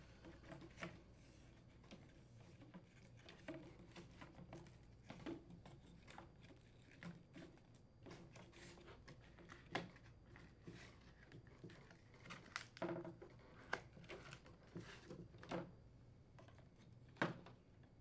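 Faint, scattered taps and rustles of foam inserts being pressed into a plastic refrigerator dispenser flapper panel, with a few slightly louder knocks in the middle and near the end.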